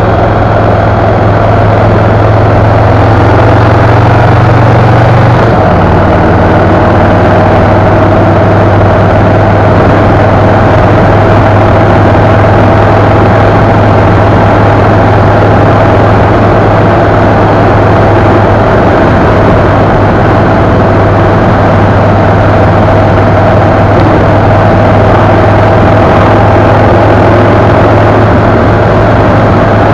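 A vehicle's engine running at cruising speed under heavy wind and road noise. The low engine note drops a step about five seconds in and then holds steady.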